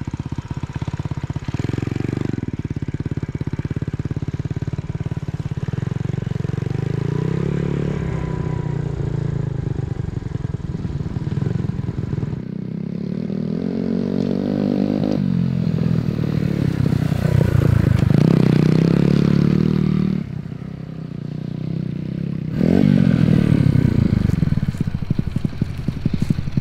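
Honda Z50R mini bike's small 49 cc four-stroke single-cylinder engine running under load off-road, revving up and down as the throttle is worked, with several rising climbs in pitch in the second half.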